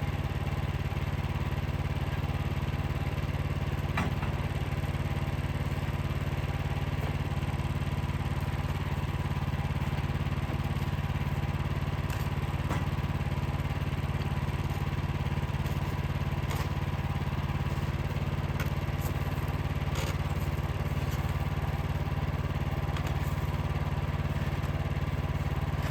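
Wood-Mizer LX55 portable band sawmill's 14 hp engine running steadily, with a few faint clicks over it.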